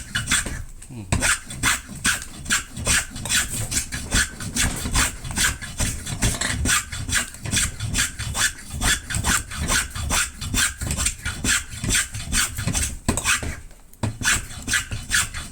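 Quick, regular strokes of a hand tool rasping and shaving a wooden sanshin tuning peg, about four strokes a second, with a brief pause near the end.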